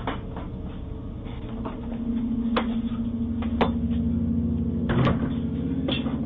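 Sharp knocks and clicks, a second or more apart, picked up by a Ring doorbell camera's microphone. A steady low hum comes in about a second and a half in.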